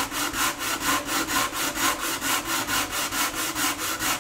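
Sanding block with sandpaper rubbed fast back and forth over the wooden rim of a bağlama bowl, in even strokes of about six or seven a second. The rim is being sanded flat at a very slight outward angle so the soundboard will seat on it.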